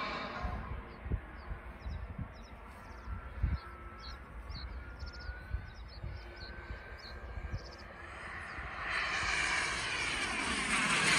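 Model jet turbine (Jetcentral 90N) on an RC glider, its rushing whine fading as the plane flies off until only a faint distant whine is left. About nine seconds in it swells again as the glider comes back overhead. A few low thumps in the quiet middle.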